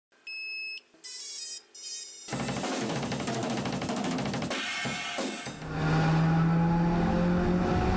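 Intro music for the channel logo: three short electronic tones, then a fast drum beat starting about two seconds in, with long held notes joining it near the end.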